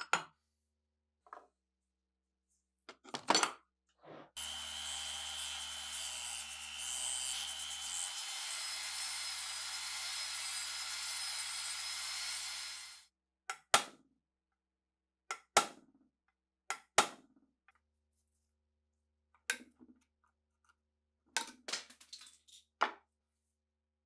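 Small handheld rotary tool running for about nine seconds with a bit in a hole in a rusted steel machine-gun receiver, a steady grinding whine. Sharp metallic clicks and knocks come before and after it as rusty parts are handled.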